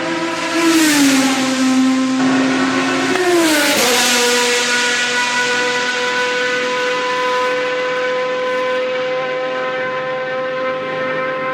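Lamborghini R-SV GT1 race car's V12 engine running at high revs. Its pitch drops twice, about one and three and a half seconds in, then holds a steady high note.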